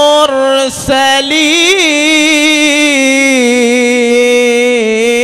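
A male qari's voice in melodic Quran recitation (tajweed), drawing out the words 'wa salamun ala al-mursalin' in one long melismatic note with wavering ornaments, after a short breath about a second in.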